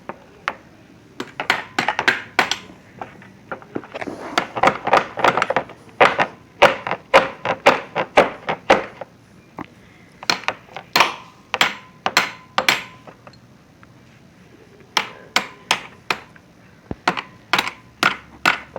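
Hammer blows on an ATV engine part, many sharp strikes in uneven runs of a few a second with short pauses between runs.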